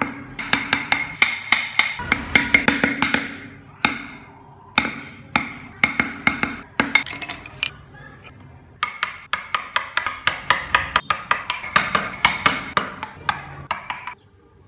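Wood carving: a mallet tapping a chisel into wood in quick bursts of sharp, ringing blows, about five a second, with short pauses between bursts.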